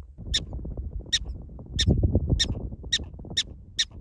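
Black-tailed prairie dog giving its repeated alarm barks: short, sharp, high squawks about two a second, evenly spaced. A low rumble runs underneath.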